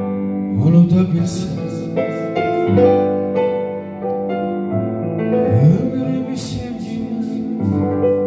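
A man singing an Azerbaijani song into a microphone, his voice sliding through ornamented phrases, over held chords from an electronic keyboard.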